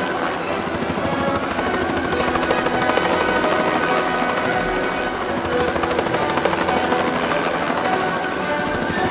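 Helicopter in flight: the steady, rapid chop of the rotor blades over the engine's running noise.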